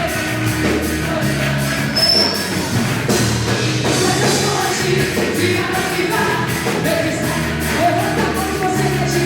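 Live praise and worship band playing a rock-style song, with a steady drum beat, sustained bass notes and singing.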